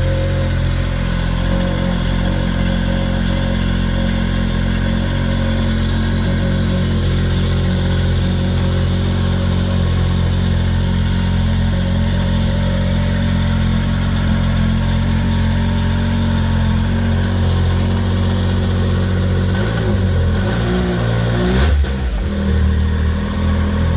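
Arctic Cat Pantera XT snowmobile engine running at a steady idle after being started. About twenty seconds in, its pitch wavers up and down for a couple of seconds before settling back to idle.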